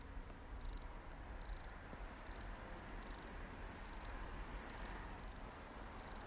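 Crickets chirping faintly, a short high chirp repeating evenly a little more than once a second, over a steady low rumble.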